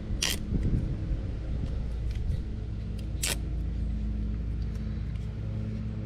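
Two short crackly rips about three seconds apart, the backing being peeled off double-sided 3M mounting tape, over a steady low hum.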